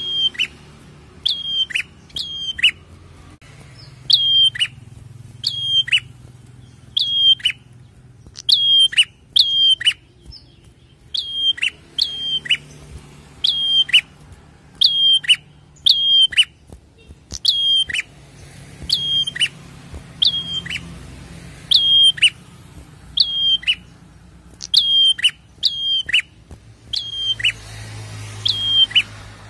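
Caged red-headed prenjak, a tailorbird, calling over and over: short sharp high notes that each drop away steeply, often in quick pairs, repeated about once a second.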